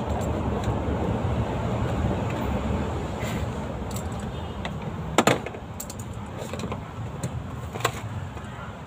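Scattered clicks and light knocks of hands and loose wires against the plastic dashboard trim and wiring harness under a car dash, over a low steady rumble that slowly fades. The sharpest click comes about five seconds in, and another near the end.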